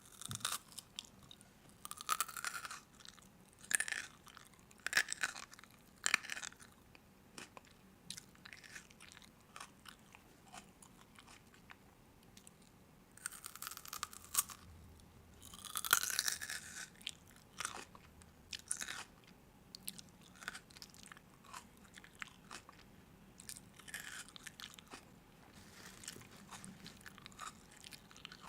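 Crunchy food being bitten and chewed close to the microphone: a series of crisp crunches, loudest in clusters near the start and past the middle, with softer chewing between.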